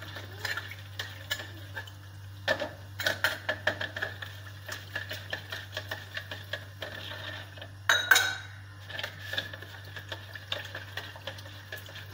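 Steel spoon stirring milk sharbat in a plastic jug, clinking and scraping irregularly against the sides as the sugar dissolves, with one louder knock about eight seconds in.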